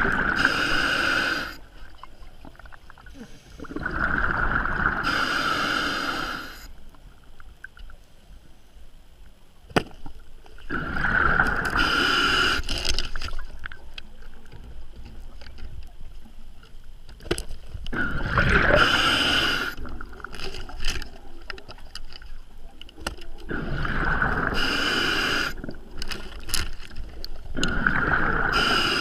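Scuba diver breathing through a regulator underwater: exhaled bubbles gush out in bursts of about two seconds, six times at roughly six-second intervals, with quieter hiss between breaths and scattered sharp clicks.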